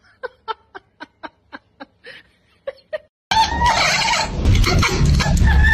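Baby chick peeping in short, separate calls, about four a second. About three seconds in, a sudden loud stretch of dense noise takes over, with a drawn-out wailing call.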